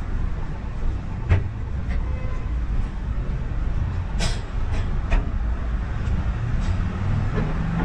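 Street traffic rumbling steadily, with a few short sharp knocks or clicks, the loudest about four seconds in.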